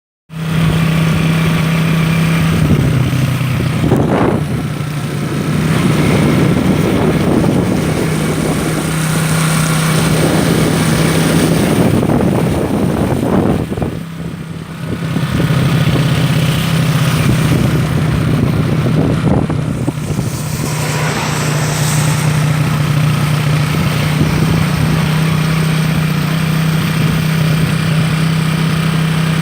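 An engine running steadily over a dense wash of noise, its note dropping lower a couple of times and then coming back up.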